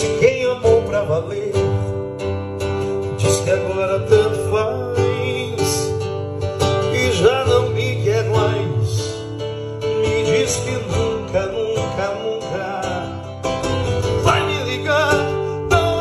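Acoustic guitar played live and amplified through a Protech Banda powered PA speaker: a steady run of strummed and picked chords with a melody over them.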